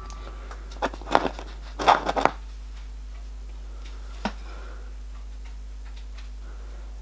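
A few light clicks and taps of small machined metal horn-plate pieces being picked up and set down on the bench and abrasive sheet: a cluster in the first couple of seconds and one more tap about four seconds in, over a steady low hum.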